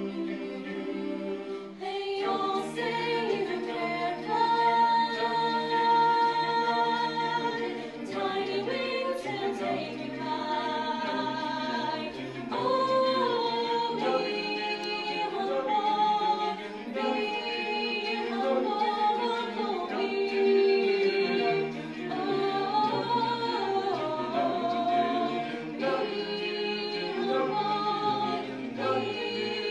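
Mixed male and female a cappella group singing in harmony into handheld microphones, several voices holding chords that change every second or two.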